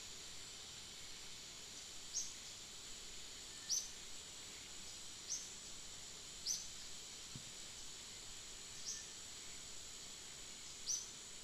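Forest ambience: a steady, high insect drone, with short, high, falling chirps repeating every one to two seconds. There is a faint low thump about seven seconds in.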